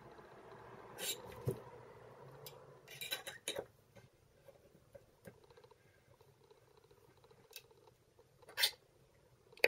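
Metal eye screw being twisted by hand into a wooden breadboard: scattered short scrapes and clicks, the loudest about a second in, around three seconds in, and near the end, with quieter stretches between.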